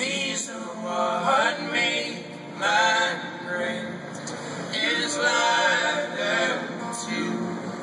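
Several male voices singing a slow song together in close harmony, live, with little or no instrumental backing.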